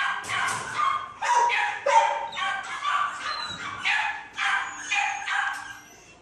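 Dogs barking repeatedly in a shelter kennel block, about two to three barks a second, fading out near the end.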